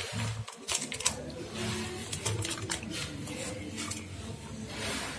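A plastic spoon clicking and scraping in a plastic takeaway food container, with quick clicks in the first second, then softer eating and chewing sounds.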